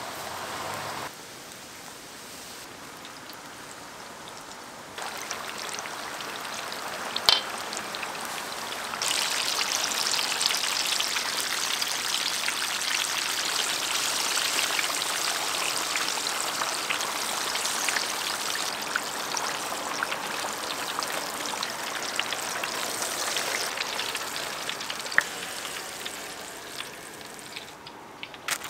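Battered twigim deep-frying in hot oil: a steady crackling sizzle that grows louder from about nine seconds in, with a couple of sharp clicks.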